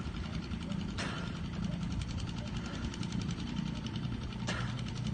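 A small boat engine running steadily at low speed, with two sharp knocks, one about a second in and one near the end.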